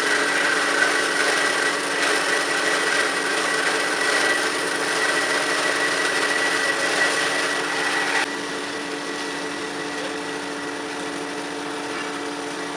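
CORMAK S-280R semi-automatic band saw cutting metal: a steady motor hum under a hissing, ringing cutting noise. About eight seconds in the cutting noise stops abruptly and the quieter hum of the running machine continues.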